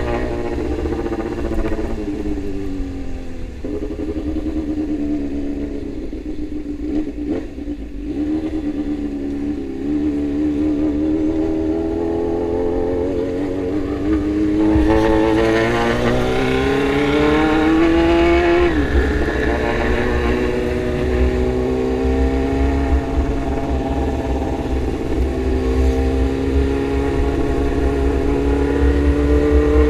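Motorcycle engine under way. Its pitch sinks at first, then climbs steadily through a gear for several seconds and drops sharply a little past halfway, as at a gear change or throttle-off, before pulling up again.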